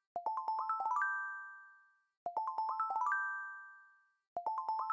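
Background music jingle: a short phrase of chiming, bell-like notes climbing upward and ringing out, repeated three times about two seconds apart.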